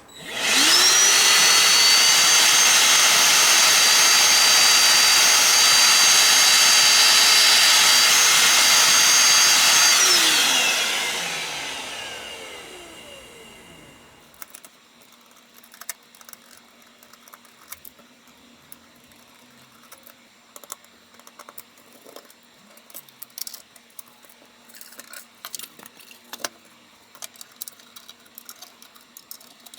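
A small high-speed electric motor spins up with a whine, runs steadily for about ten seconds, then winds down, falling in pitch as it coasts to a stop. Faint clicks and taps follow.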